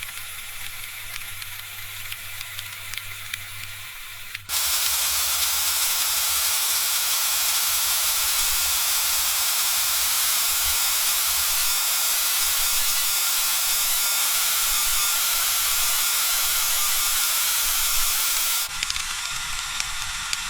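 Food frying in hot oil: at first a light crackle with scattered pops. About four and a half seconds in, a loud, dense sizzle starts abruptly and holds steady for about fourteen seconds, then cuts back to the lighter crackle near the end.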